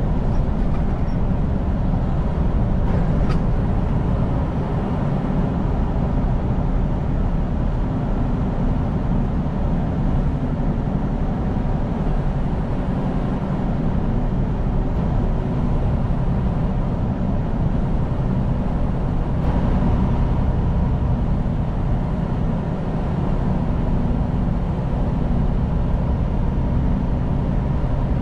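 Semi-truck on the move, heard from inside the cab: a steady low drone of the diesel engine mixed with road noise.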